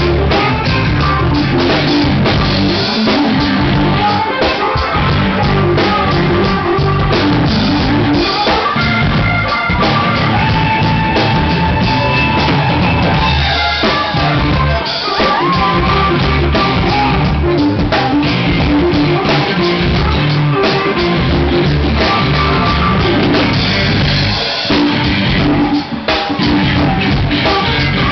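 Live rock band playing loudly: electric guitar over bass guitar and a drum kit keeping a steady beat.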